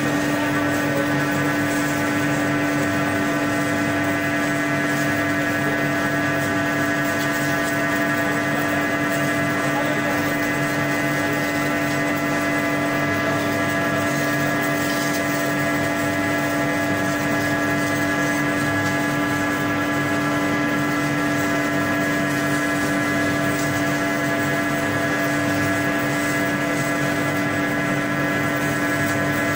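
Wire-type CNC foam contour cutting machine running steadily: an even mechanical hum and whine of several steady tones that holds at one level throughout.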